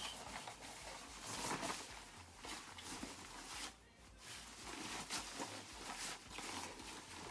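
Jacket fabric rustling as it is pulled on, then taken off and bundled up, in short irregular scuffs with a brief quiet pause partway through.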